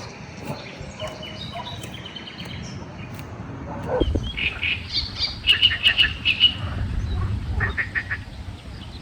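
Birds calling, in runs of quick, high-pitched calls several a second, loudest in the middle. A low rumble sets in underneath about four seconds in.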